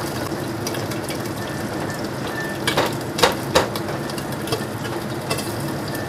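Stone pestle grinding candlenut, coriander seed, shallot and chillies against a stone mortar (cobek and ulekan), a steady rubbing and crushing, with a few sharp stone-on-stone knocks about three seconds in.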